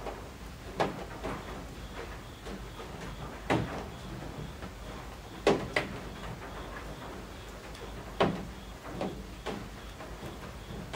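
Rain beating on roof eaves: a steady patter with heavier drops striking as sharp taps at irregular intervals, the loudest about five and a half seconds in.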